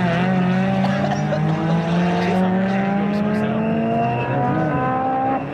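Racing cars' engines, among them a Honda Civic EG6's four-cylinder, accelerating out of a corner under load. Their pitch climbs steadily for about five seconds, then drops near the end.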